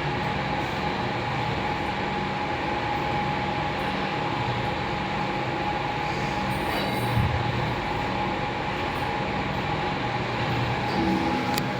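Lift car travelling in its shaft: a steady running hum and rumble with a constant whine, and a brief low bump about seven seconds in.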